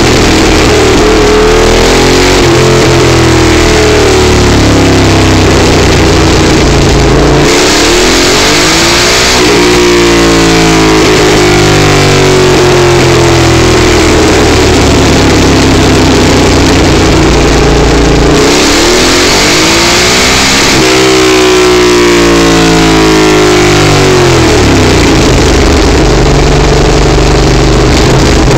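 Yamaha Super Ténéré's 1200 cc parallel-twin engine, breathing through Arrow exhausts, run on a rolling-road dyno. It is revved hard twice, about 7 s and about 18 s in, for a couple of seconds each time, and after each pull the revs wind down over several seconds; between the pulls it runs steadily.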